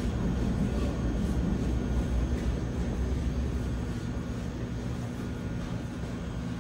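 Steady low rumble of a subway train in an underground station, easing off slightly toward the end.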